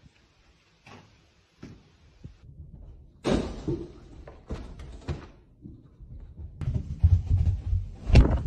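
A sudden bang about three seconds in, then scattered knocks, and a dense run of thuds and bangs over the last two seconds, with the loudest hit near the end.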